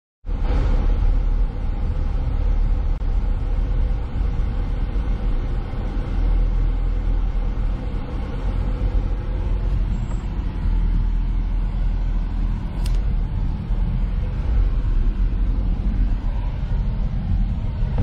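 A car driving: a steady low rumble of engine and road noise, with one sharp click about two-thirds of the way through.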